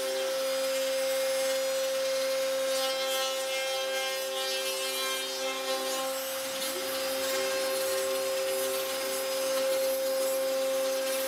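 CNC router spindle with a two-insert Onsrud surfacing cutter running at 16,000 RPM and skimming the wooden spoilboard flat. It makes a steady high whine over the hiss of the cut.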